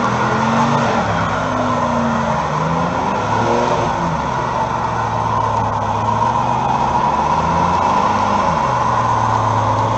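Car burnout: the engine revs up and down every second or two while the rear tyres spin on the pavement, giving a steady screeching hiss under the engine.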